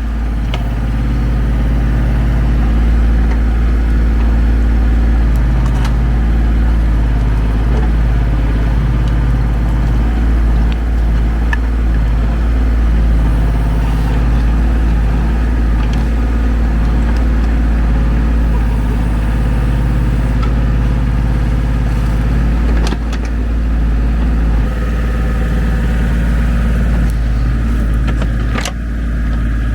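Ford 1520 tractor's diesel engine running steadily under load while working the backhoe, with a few sharp knocks, the loudest near the end.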